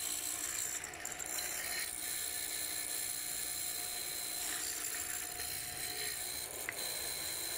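Floor-model hollow-chisel mortiser running steadily, with a constant high tone, as its 3/8-inch chisel and bit bore out the center waste between the cheeks of a double tenon.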